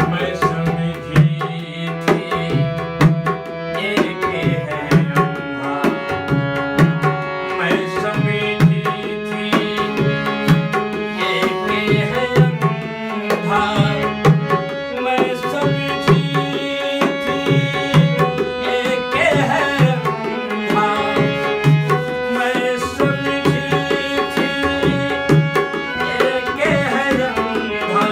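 Instrumental interlude of a Hindi bhajan: a tabla plays a steady, driving rhythm under a sustained melody on a melodic instrument.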